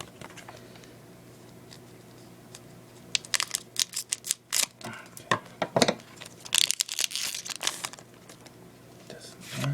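Foil wrapper of a Pokémon trading-card booster pack crinkling and tearing as it is opened, in a run of sharp crackles and rustles starting about three seconds in.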